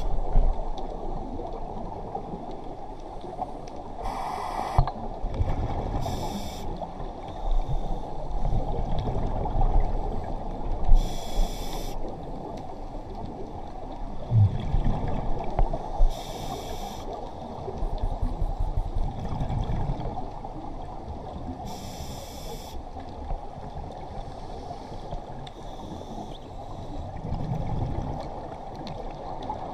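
Scuba diver breathing through a regulator underwater: a short hiss with each breath in, several times over, and a low rumble of bubbles with each breath out.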